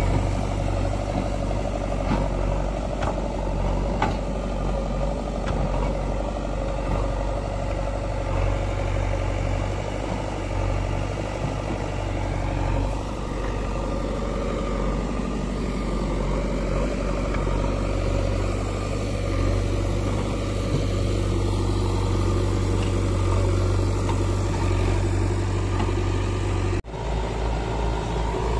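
JCB 3DX backhoe loader's diesel engine running steadily as the machine works. Near the end the sound breaks off suddenly and is followed by an engine with a low, pulsing throb.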